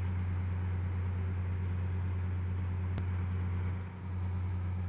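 Oil drilling rig's machinery running with a steady low drone. It dips briefly about four seconds in.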